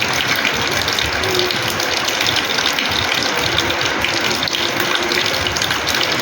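Rainwater pouring and splashing onto a house's terrace floor, a steady, unbroken splashing.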